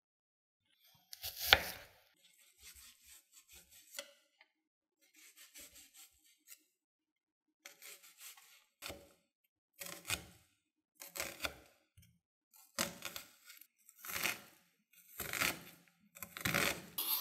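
A loud rustle and soft crackling as a red onion is handled. About seven cuts follow, a little over a second apart: a chef's knife slicing through the red onion onto a wooden cutting board.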